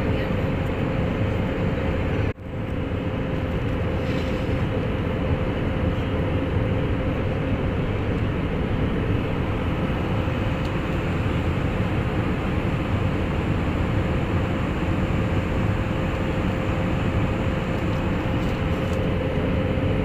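Steady jet airliner cabin noise in flight, engine and airflow heard from inside the cabin at a window seat, with a steady hum running through it. The sound cuts out for a split second about two seconds in, then returns.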